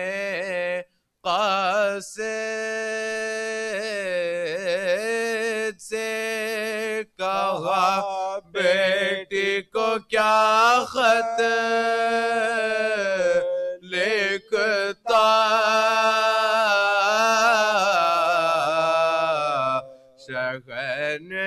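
Unaccompanied male chanting of a marsiya, an Urdu elegy, in long, wavering held notes broken by brief pauses.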